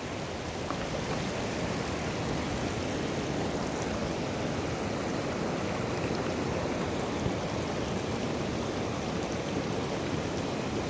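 Small rocky river running over stones and gravel: a steady rushing of water.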